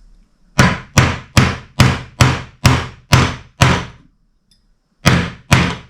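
Hammer striking a bushing tool to drive a new bush into a Nukeproof Horizon Pro flat pedal body: a run of eight sharp metallic blows about two a second, then a pause and two more blows near the end.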